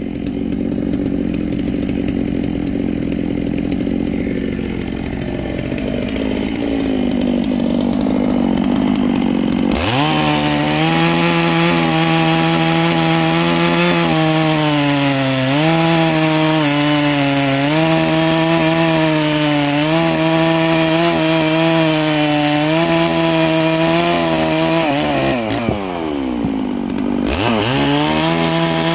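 Chainsaw fitted with a tungsten-carbide chain running at low speed for about ten seconds, then going to full throttle and cutting through a hardwood log. The engine note sags and recovers repeatedly under the load. Near the end it drops briefly, then revs back up for the next cut.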